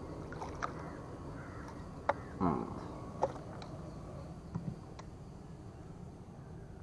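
Quiet outdoor ambience with a few sharp clicks, and one short, falling bird call about two and a half seconds in.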